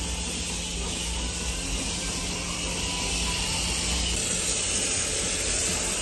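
High-pressure foam lance spraying snow foam onto a car in a car wash bay, a steady hiss of spray.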